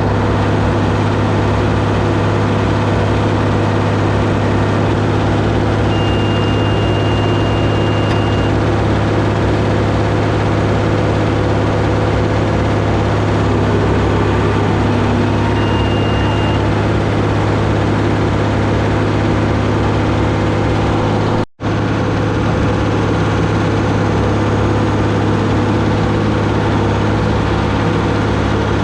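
Deutz D130 06 tractor's air-cooled six-cylinder diesel running steadily under the work of driving a round baler, a loud even drone. A high steady beep sounds twice, once for about two seconds and later briefly, and the sound cuts out for an instant about two-thirds through.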